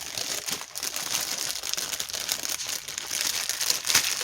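Packaging crinkling and rustling as it is handled and opened, a steady crackle of small crinkles with a louder burst near the end.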